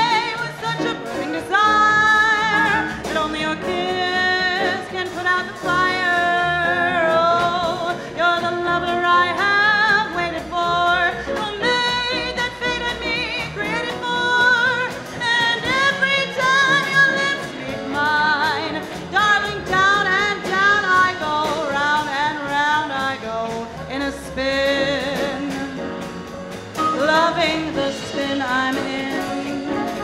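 A woman singing into a microphone, backed by a live swing-style dance band. The music runs continuously.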